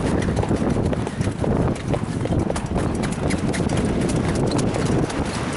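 A standardbred trotter's hoofbeats clip-clopping in quick, irregular succession over a steady low rumble.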